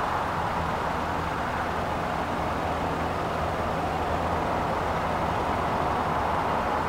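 Airbus A330-300 jet engines running at low taxi power as the airliner rolls slowly onto the runway: a steady jet noise with a low hum beneath it.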